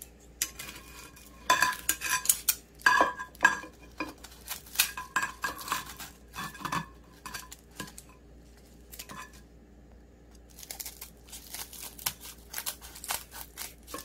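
Kitchen scissors snipping through a grilled jack mackerel's crisp skin and bones on a ceramic plate, with metal blades and tongs clicking and clinking against the plate. The clicks come in quick runs, with a quieter pause of a few seconds in the middle.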